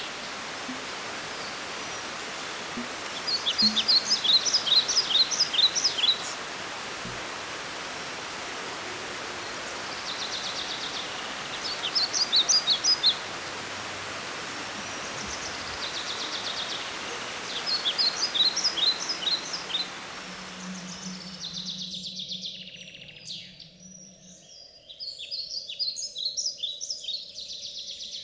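Steady rush of flowing water with a songbird repeating phrases of rapid, high chirps several times over it. About 22 seconds in the water noise cuts off and fainter birdsong carries on.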